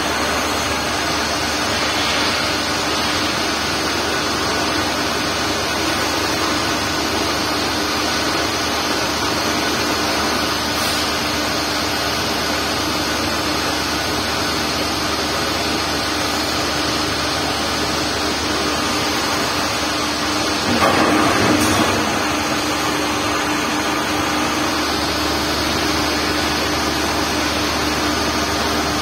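CNC lathe finish-turning a metal screw blank with a carbide insert tool: a steady machine hum of the spindle and cut, louder and rougher for about a second near 21 seconds in.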